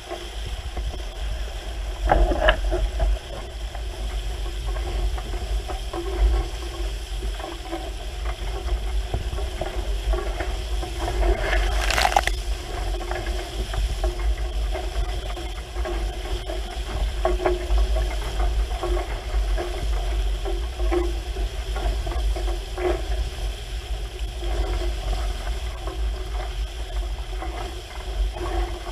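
Hull of a Hurricane 5.9 Sport catamaran rushing through choppy water at speed, with spray hissing and splashing off the bow and wind rumbling on the microphone. A louder splash comes about twelve seconds in.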